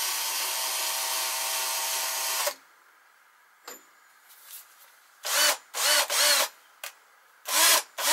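Cheap cordless drill motor running steadily, turning the Myford lathe's cross-slide feed screw through a driving dog as a power feed; it stops abruptly about two and a half seconds in. After a click, the drill gives about six short trigger blips, each a quick spin-up and spin-down.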